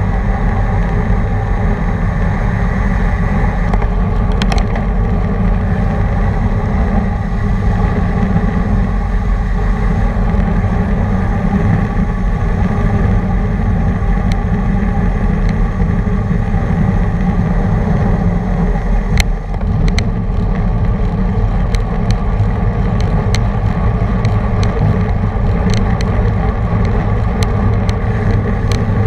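Loud, steady wind rushing over the microphone of a camera riding on a racing bicycle in a pack, mixed with road and tyre noise. A few sharp clicks come in the second half.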